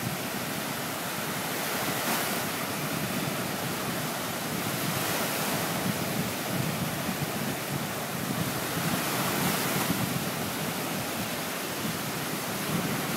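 Small waves breaking and washing up on a sandy shore, a steady rushing noise, with wind blowing across the microphone.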